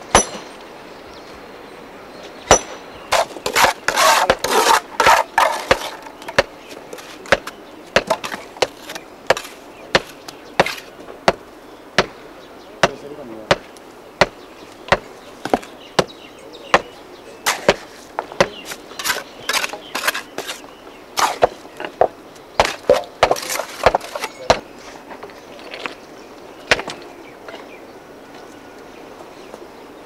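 Hammer striking and breaking stone: sharp cracks at an uneven pace, often several a second in quick runs, with short pauses between.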